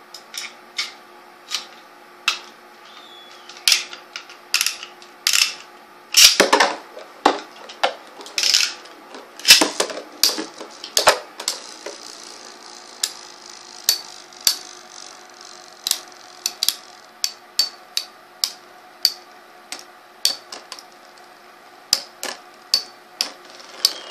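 Metal Beyblade spinning tops clashing in a plastic stadium: irregular sharp clacks, with a dense, loud flurry of hits about six to eleven seconds in, then sparser clicks as they keep spinning.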